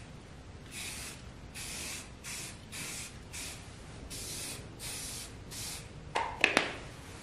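Aerosol spray can hissing in about eight short bursts as paint is sprayed onto a sheet-metal fireplace log base. A few sharp knocks follow near the end.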